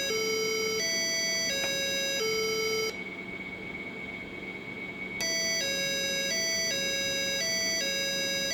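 The buzzer on an MB522 NodeMCU experiment board plays a programmed doorbell tune: a string of buzzy electronic notes, each about two-thirds of a second long, stepping between a few pitches. The tune breaks off about three seconds in for roughly two seconds, then resumes as a see-sawing two-note chime.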